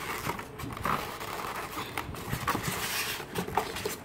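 Hands working a plastic RC transmitter loose from its styrofoam packaging insert: irregular scraping and rubbing of plastic against foam, with a few small knocks.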